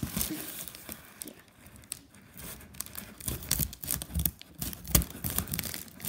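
Plastic poly mailer bag crinkling as it is handled and cut open with scissors, in irregular rustles, snips and tearing, with a sharp click about five seconds in.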